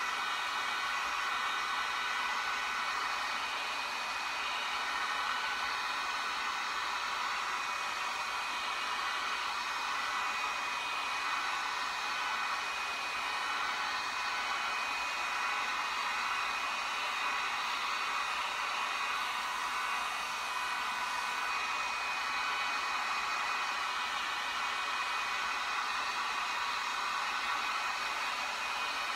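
Handheld hot-air blower running steadily over freshly screen-printed ink on a T-shirt, drying it. It makes an even rush of air with a faint steady whine.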